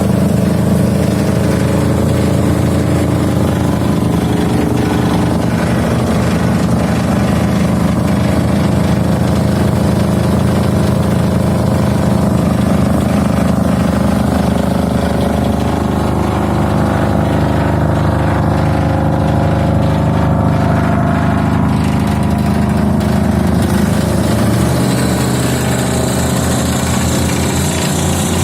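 Chevrolet 350 V8 engine of a wood chipper running steadily and loud, its note changing near the end.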